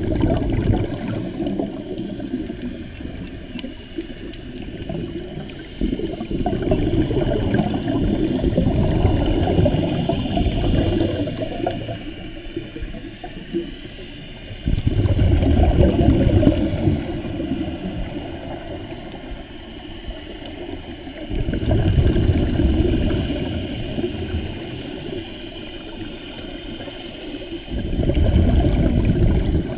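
Scuba diver's exhaled bubbles from the regulator, heard underwater: a low bubbling rush comes in bursts about every six to seven seconds, with quieter stretches between.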